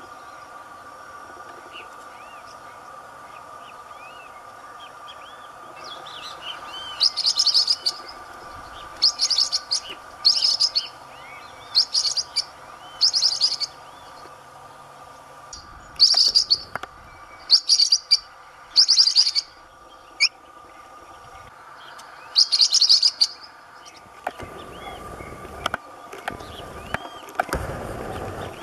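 Blue-winged parrotlet (tuim) giving about ten short bursts of rapid, high-pitched chattering calls, a second or two apart, over a steady faint hum. Near the end, low rustling and knocking noises.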